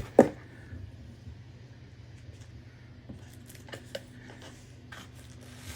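Handling of a mini PC's cardboard box and packaging: one sharp knock just after the start, then scattered light taps and clicks.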